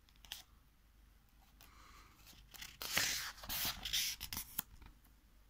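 Paper page of a picture book being turned by hand: a rustling swish with a few soft handling clicks, loudest a little past the middle.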